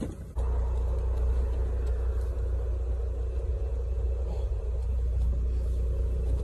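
A car's engine idling: a steady low rumble that starts abruptly about half a second in and holds evenly.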